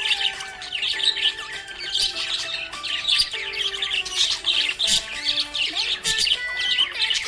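Budgerigars chirping and squawking in a busy, continuous stream of short calls, over background music.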